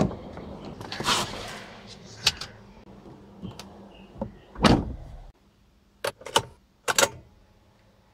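Car door latch clicking open as the outside handle is pulled, the door swinging, then the driver's door shutting with a thump about four and a half seconds in, after which the outdoor background falls away. Three sharp clicks follow inside the closed cabin of the Tata hatchback.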